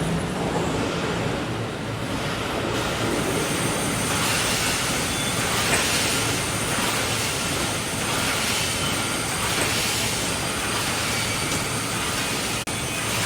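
Automatic wire mesh welding machine running: dense, steady machine noise over a low electrical hum, with a pulse repeating about once a second.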